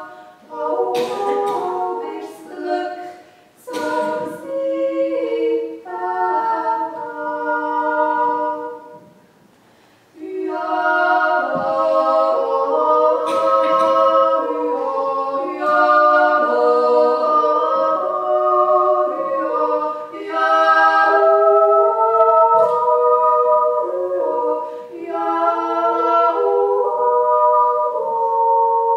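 Two women singing an unaccompanied duet, their two voices moving together in harmony in held, stepwise notes. The singing breaks off for a short pause about nine seconds in, then carries on.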